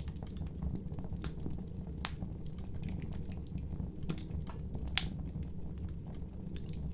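Wood fire crackling: a steady low rumble with scattered sharp pops, the loudest about five seconds in.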